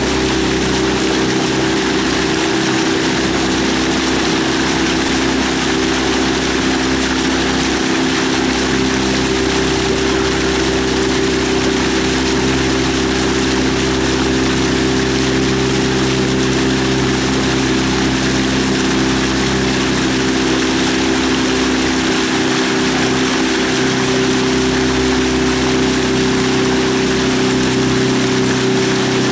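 A motorboat engine running steadily at an even pitch.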